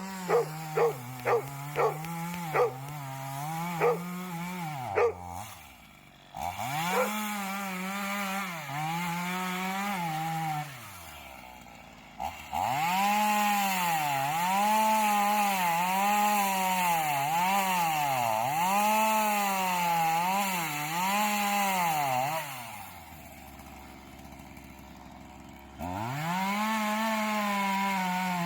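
Chainsaw cutting into a tree, its engine revving and dipping in pitch again and again as the chain bites, easing off to a quieter idle a few times. A dog barks in a quick series over the first few seconds.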